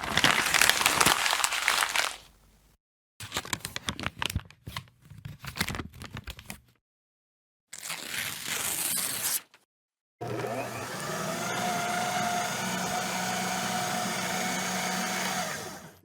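A series of separate paper sound effects with short silences between them. First comes dense paper crumpling, then a run of sharp crinkles and crackles, then a brief hissing rustle. Last is a steady whirring noise with a held hum, lasting about six seconds.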